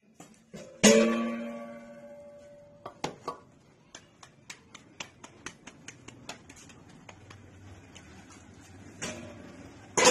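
Background instrumental music on a plucked string instrument: a chord rings out and fades about a second in, then a string of short picked notes follows, and another chord comes near the end.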